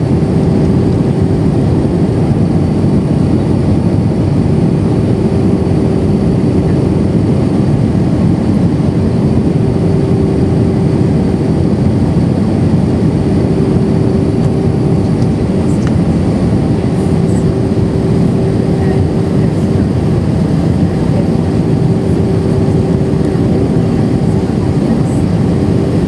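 Airbus A319 cabin noise on the approach: steady engine and airflow roar heard from a seat over the wing, with a steady hum running through it.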